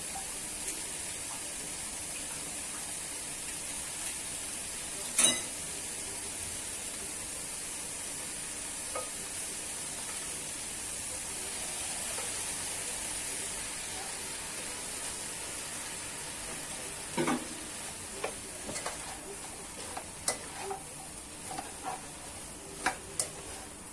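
Sliced celery and dried scallops sizzling in a wok with a steady frying hiss. There is one sharp clack about five seconds in. From about two-thirds of the way through, a spatula stirs the vegetables and knocks against the pan several times.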